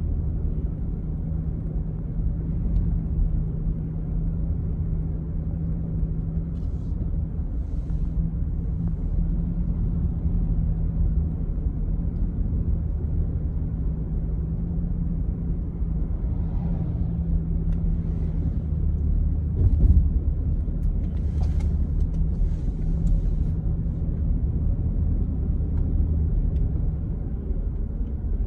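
Steady engine and road rumble heard inside a moving vehicle's cabin, with a low steady hum underneath and a brief louder bump about two-thirds of the way through.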